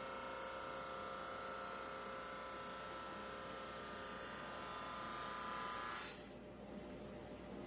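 Drum sander running steadily with a whine, stopping abruptly about six seconds in, leaving faint hiss.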